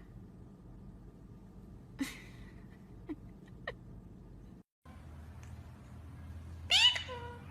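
A short high squeak and a couple of faint clicks, then, after a brief cut in the sound, a cat meowing once loudly near the end, its pitch falling.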